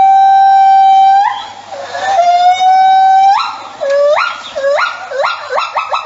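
A small animal crying in long, drawn-out calls that slide up in pitch and then hold steady. Two long cries come first, then shorter rising cries that come faster toward the end.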